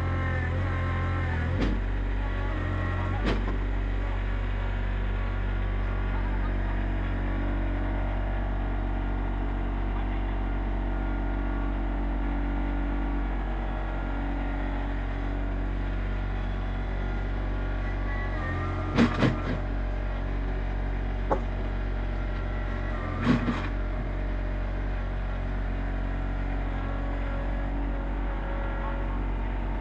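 RK25 compact tractor's diesel engine running steadily, its note shifting slightly in the first few seconds. A few short, sharp knocks come in the second half and are the loudest sounds.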